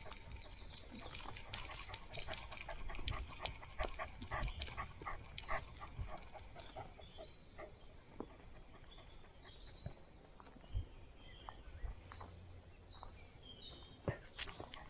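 A dog trotting on a dirt forest path, heard from a camera on its head: a quick patter of paw steps and rustling, densest in the first half. A few short bird chirps come in near the end.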